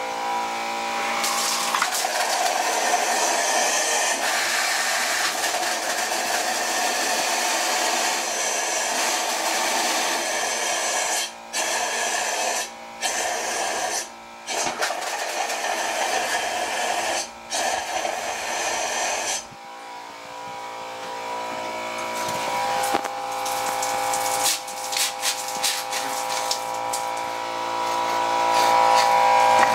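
Compressed air blowing through the bathtub's water lines and out of the fixture: a loud steady hiss with a hum, pushing the water out of the plumbing to winterize it. It cuts off abruptly a few times around the middle and is quieter for a while after that.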